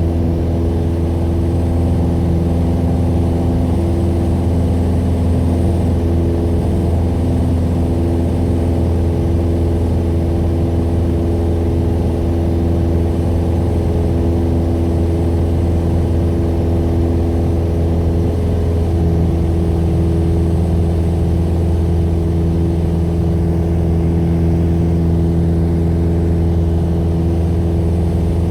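Piper PA-28 Warrior's four-cylinder Lycoming piston engine running steadily, a constant low drone with a slight shift in its tone about two-thirds of the way through.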